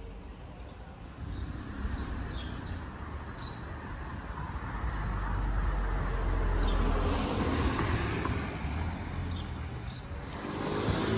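Street traffic: a passing vehicle's rumble and tyre noise building to its loudest in the middle and then easing, with short high chirps over it.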